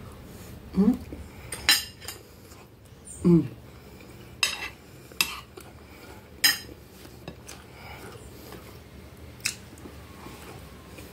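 A metal fork clinking against a glass plate while someone eats, with about five sharp clinks spread through. Two short hums from the eater, about a second in and again a little after three seconds, are the loudest sounds.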